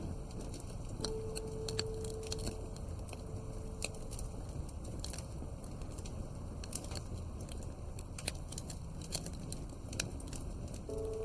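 Wood fire crackling in a fireplace: frequent irregular sharp pops and snaps over a steady low rumble.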